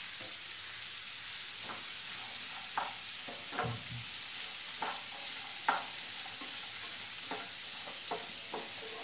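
Diced carrots frying in oil in a nonstick frying pan with a steady sizzle, while a spatula stirs them, knocking and scraping against the pan about ten times at irregular intervals.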